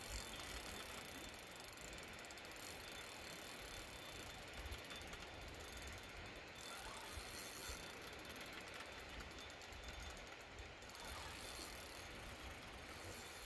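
Spinning reel ticking softly and steadily while a hooked steelhead is played on a bent rod, over a low rumble.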